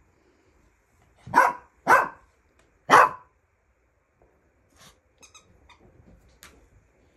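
A dog barking three times, sharp single barks about half a second to a second apart.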